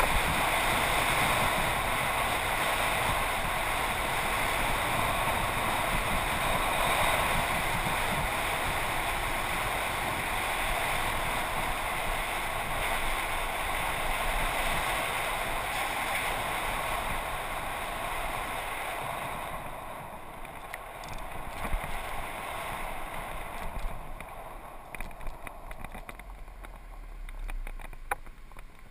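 Steady rushing wind noise on a bike-mounted GoPro microphone as a bicycle rides along a road. About 19 seconds in the rush drops away as the bike slows, leaving scattered clicks and rattles.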